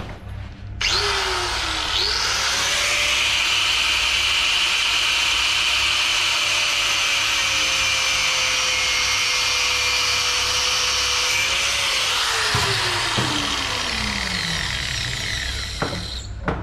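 Electric grinder switched on about a second in, speeding up and running steadily with a grinding hiss for about ten seconds, then switched off and winding down in falling pitch near the end.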